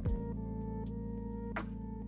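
Background instrumental music: sustained keyboard chords with a drum hit just after the start and another about a second and a half later.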